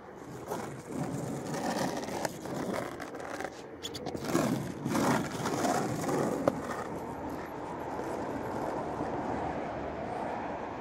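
Skateboard wheels rolling over rough asphalt with a steady grinding noise, with a few sharper knocks from the board and pushing foot between about four and seven seconds in.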